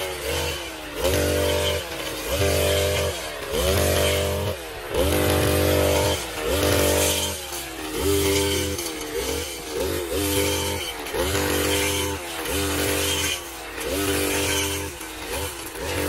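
Petrol brush cutter cutting tall grass, its engine revving up and easing off about every second and a half as the blade swings through the stems, each surge starting with a rising whine.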